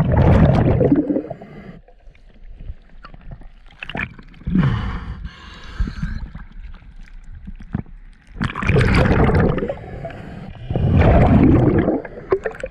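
Scuba diver breathing through a regulator underwater: loud gurgling rushes of exhaled bubbles come in bursts of a second or so, four times, with a hissing inhale between them.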